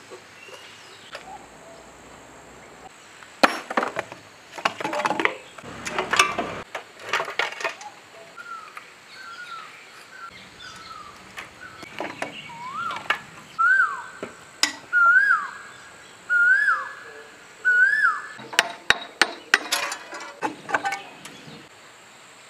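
Clinks, knocks and rattles of tools and metal engine parts as a diesel generator set's engine is taken apart by hand. About midway a rising whistled note repeats five times, roughly once a second.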